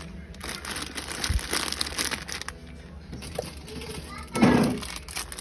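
Plastic snack packaging crinkling as it is handled for about two seconds, then a voice calls out briefly, the loudest sound, near the end.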